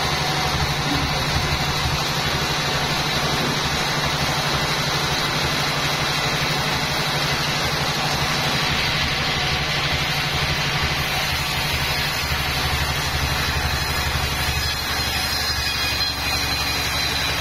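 Bandsaw sawmill running steadily, a low, even mechanical drone with a continuous hiss above it.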